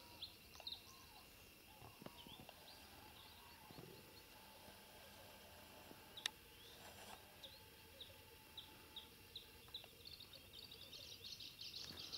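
Near silence: quiet outdoor ambience with faint small-bird chirps, more frequent toward the end, and one sharp click about six seconds in.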